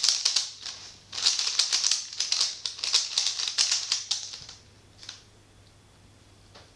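Rapid plastic clicking and clacking of a 3x3 speed cube being turned fast, with a short pause about a second in. The clatter stops about four and a half seconds in, with one last click near five seconds, as the cube is solved.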